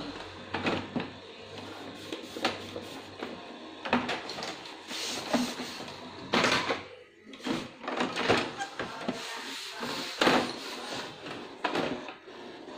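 Knocks and clatters of hands pressing and handling the plastic case and scanner lid of an HP DeskJet 2515 all-in-one printer, a sharp knock every second or two.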